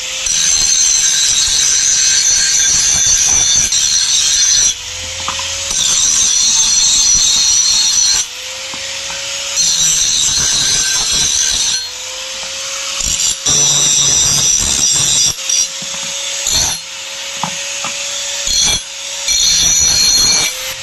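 Steel axe head being ground with a power grinder, in repeated passes of a few seconds each. The high, hissing grind rises and eases between passes.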